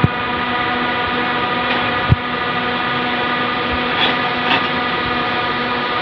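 Steady droning hum made of many unchanging tones, with a few short knocks: one at the start and a sharper one about two seconds in.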